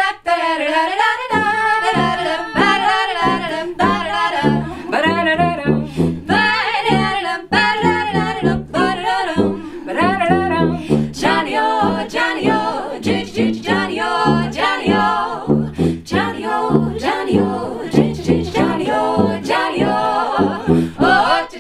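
Three women singing close harmony in 1940s swing style, scatting wordless 'ba-da-da' syllables, over a steady pulse of low notes from an accompanying instrument.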